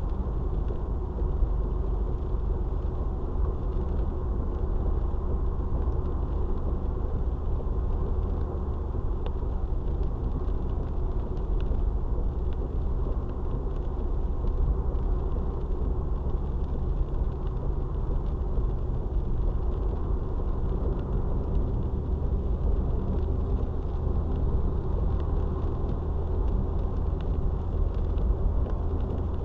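Steady low rumble of a moving car's road and engine noise, picked up inside the cabin by a dashboard camera's microphone.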